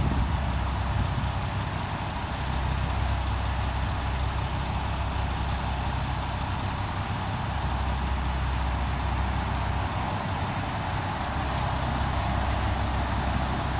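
Steady outdoor rumble and hiss, with wind buffeting the microphone in a fluttering low rumble over the steady noise of road traffic.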